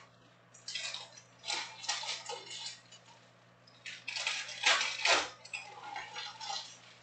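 Trading cards and foil card packs being handled and set down on a table: irregular bursts of rustling and clattering with short pauses between them.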